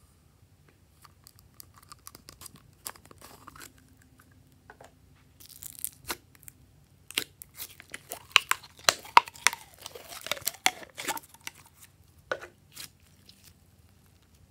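A thin plastic bottle of gold glitter slime being squeezed and worked open by hand: scattered clicks and crinkles at first, then a dense run of loud crackling and crinkling from about seven to eleven seconds in.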